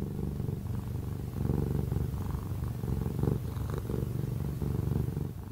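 Domestic cat purring close up, growing louder about a second and a half in.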